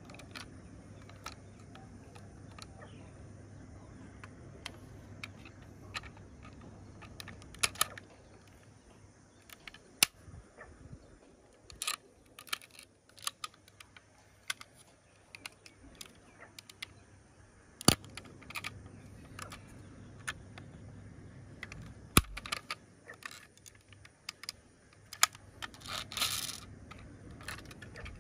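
Irregular clicks and taps from a toy ambulance model being handled, its parts clicking against fingers and each other, with a few sharper knocks.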